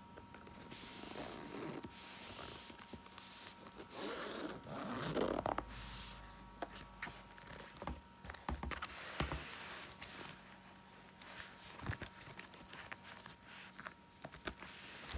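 A zippered trading-card binder being unzipped: a scratchy zip over the first several seconds. Then rustling and light clicks as its plastic sleeve pages are handled and turned.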